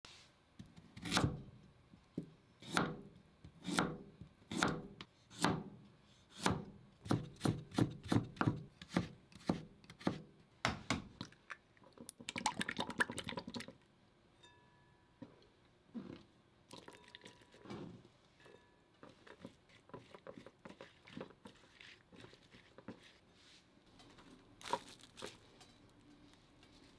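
A kitchen knife cuts a carrot on a plastic cutting board, knocking about once a second at first and then two to three times a second. Next comes a quick run of rapid clicking as chopsticks beat an egg in a glass bowl. After that there is light handling, with a crinkle of plastic cling film near the end.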